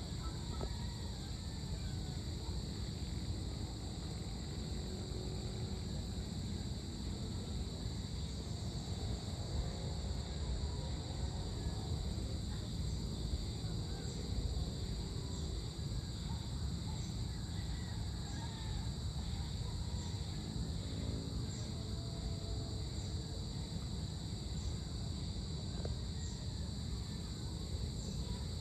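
Outdoor evening ambience: a steady, high insect chorus that does not break, over a low background rumble.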